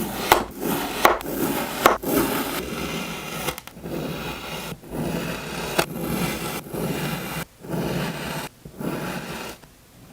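Kinetic sand being cut and crumbled: grainy scraping and crunching in short spells broken by brief gaps, with a few sharp clicks in the first two seconds.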